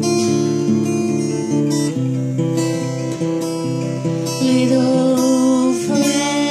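Acoustic guitar playing a slow run of held chords as instrumental music.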